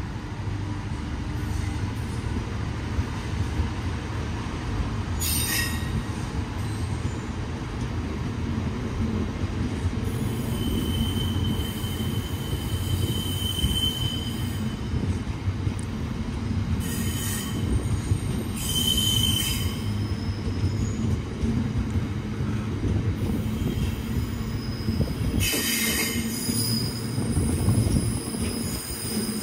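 Freight train of open box wagons rolling past close by: a steady rumble of wheels on rail, broken a few times by short high-pitched wheel screeches and one longer held squeal about halfway through.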